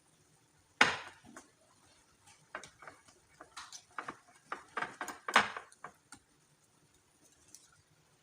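A utensil knocking against a mixing bowl as batter is stirred: a sharp knock about a second in, then an irregular run of taps and knocks through the middle.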